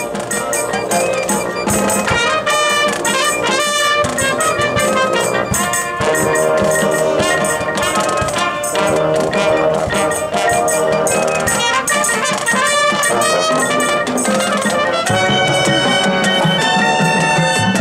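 Marching band playing: brass section carrying the melody over drums and percussion.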